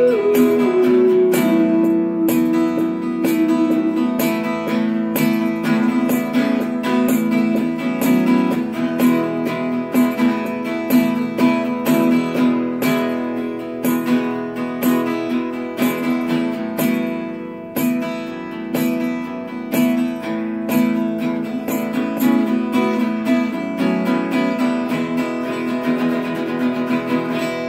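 Solo acoustic guitar picked and strummed in an instrumental passage, a steady run of plucked notes over ringing chords, easing off near the end.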